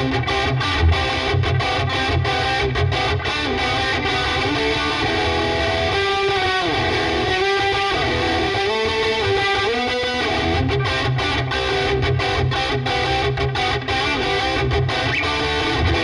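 Swing C1 Plus single-cutaway electric guitar played with distortion on its bridge humbucker. Low, rhythmic chugging riffs open and close the passage, with held, bending lead notes in the middle.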